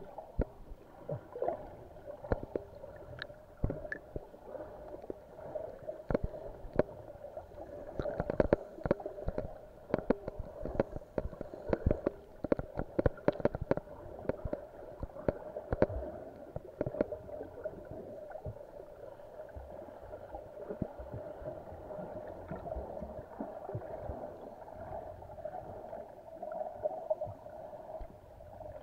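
Underwater sound heard by a submerged camera: a steady muffled hum with gurgling water movement and many sharp clicks and crackles, busiest in the middle stretch.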